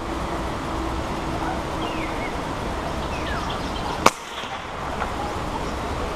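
A single shot from a PCP air rifle firing a fishing dart: one sharp, short crack about four seconds in, over a steady outdoor background.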